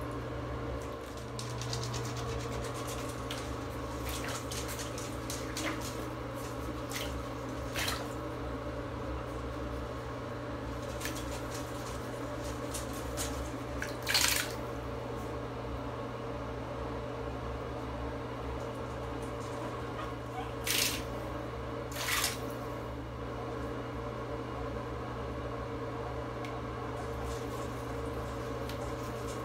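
Soft splashing and sloshing of shallow bathtub water as guinea pigs move about, with a few sharper splashes, the loudest about halfway through and two more about two-thirds in, over a steady low hum.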